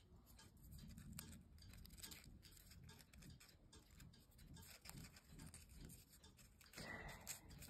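Faint rustling and crinkling of folded paper origami units being handled and slotted together, with scattered soft clicks and a slightly louder rustle near the end.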